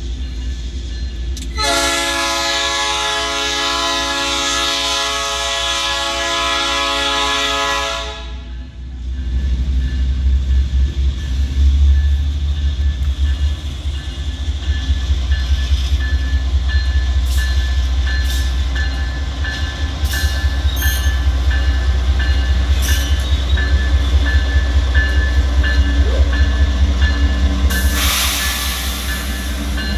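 Rumo freight train's diesel locomotive sounding its multi-chime air horn in one long blast of several seconds. Then the diesel engines rumble louder as the locomotives come close, with a steady rhythmic clatter of wheels over the rail joints and a short burst of hiss near the end.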